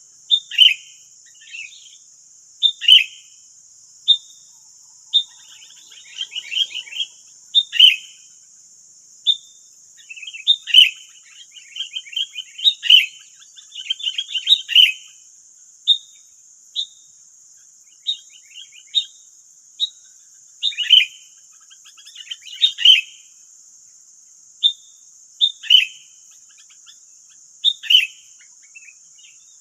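Sooty-headed bulbuls calling: sharp, short falling notes repeated every second or so, with bursts of busy chattering from several birds at once.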